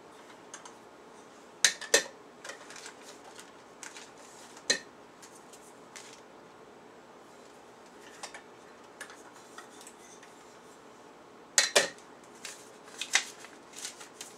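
Metal parts of a PanaVise 350 clanking and clicking against each other and the workbench as the vise head is fitted onto its base. Two sharp clanks come close together about two seconds in, another near five seconds, and a cluster around twelve to thirteen seconds, with quieter handling clicks between.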